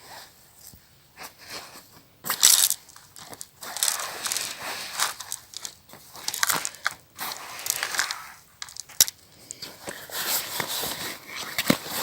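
Irregular rustling and crunching handling noises close to the microphone, with scattered sharp clicks, starting about two seconds in.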